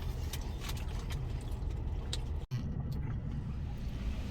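Car engine and road rumble, low and steady, with a brief dropout about halfway through.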